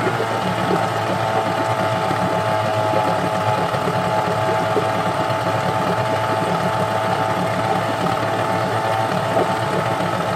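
Yamaha 8 hp (8CMH) twin-cylinder two-stroke outboard motor running steadily in a water-filled test barrel.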